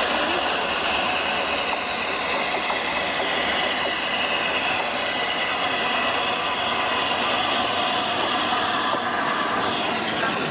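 Steam locomotive 60103 Flying Scotsman, an LNER A3 Pacific, running in with its train in a steady mix of engine and wheel noise. Rail clatter comes in near the end as the engine draws alongside.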